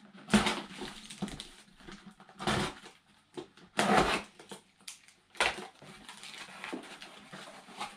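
Packing tape on a cardboard box being slit with a blade and torn, then the cardboard flaps scraping and rustling as they are pulled open. It comes as several short noisy bursts, the loudest about half a second and four seconds in.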